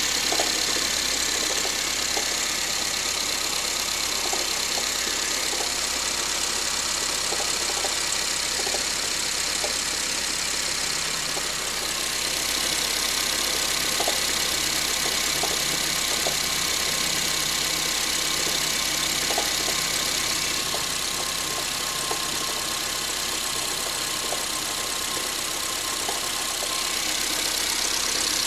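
A Honda City's L15A 1.5-litre four-cylinder engine idling with a light, irregular knock heard over the running engine. The owner describes this as a knock that appears when the air-conditioning compressor is switched off and disappears when the compressor clutch engages.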